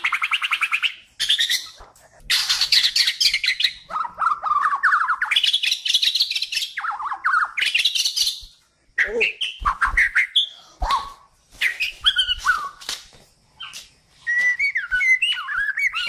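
Bornean white-rumped shama (murai batu) in full song: bursts of fast trills of rapidly repeated notes, then from about nine seconds a string of varied, sliding whistled phrases.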